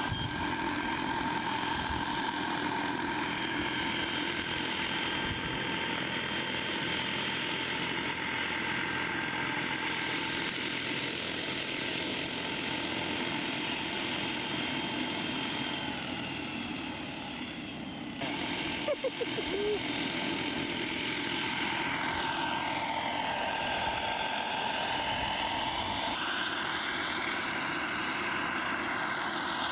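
Radio-controlled model helicopter's small gas turbine running with a steady high whine, its rotor turning. About two-thirds of the way through the sound breaks briefly, and over the last several seconds the whine slides up and down in pitch as the helicopter lifts off and hovers.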